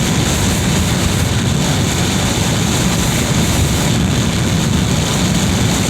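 Wind blowing in through a window, a steady low rushing rumble with hiss above it.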